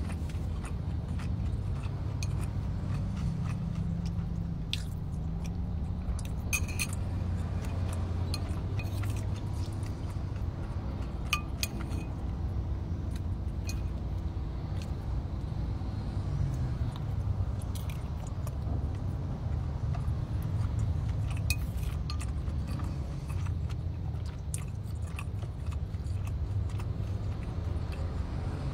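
Someone eating noodles from a ceramic bowl: chewing, with a fork clicking and scraping against the bowl now and then, over a steady low rumble inside a car.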